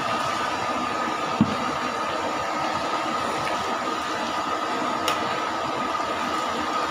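Chicken pieces deep-frying in a large wok of hot oil: a steady sizzling hiss. A single low thump comes about a second and a half in, and a light click comes near five seconds, as a ladle works the pieces.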